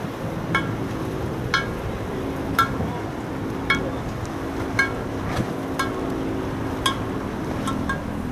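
Sharp metallic clinks, each ringing briefly, evenly spaced about once a second, over a steady low drone.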